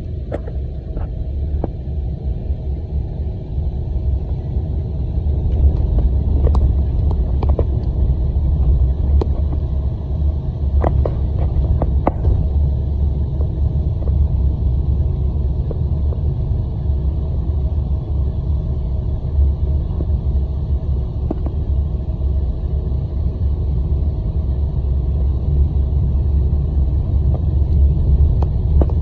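Steady low rumble of a motor vehicle driving, with a few light clicks and rattles about a third of the way in.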